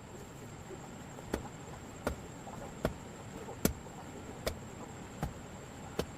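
Repeated blows of a hand tool striking wood or bamboo, a steady rhythm of about one sharp strike every three-quarters of a second, seven in all.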